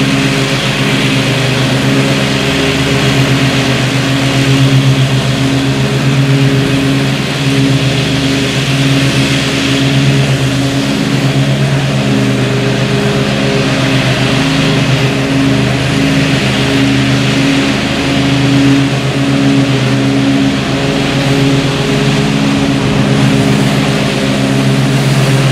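Zero-turn riding mower's engine running steadily while mowing, one even pitched engine note.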